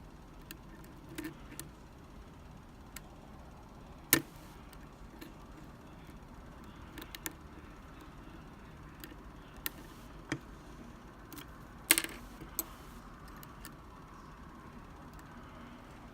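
Lock pick and tension wrench clicking and tapping inside a Medeco lock cylinder as the pins are lifted toward the shear line: scattered small metallic clicks, the sharpest about four and twelve seconds in.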